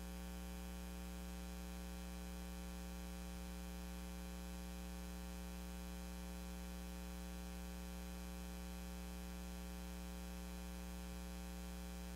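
Steady electrical mains hum with a buzz above it and a faint hiss, unchanging, with no voices or music.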